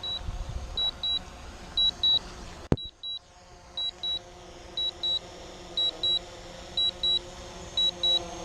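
Drone remote controller giving its low-battery warning: a pair of short high electronic beeps about once a second. About three seconds in there is one sharp click, and after it the low background rumble drops.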